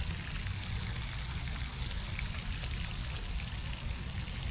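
Steady hiss and patter of rain falling and dripping, with scattered fine drip ticks over a low rumble.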